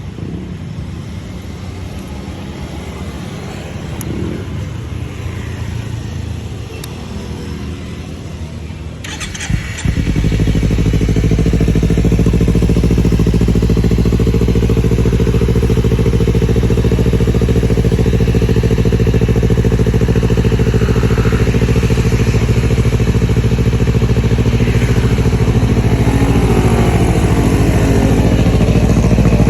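Kawasaki Z250/Ninja 250 parallel-twin engine, fitted with a Two Brothers aftermarket exhaust, starting up about ten seconds in and then idling steadily and loudly. Before the start a quieter engine sound runs.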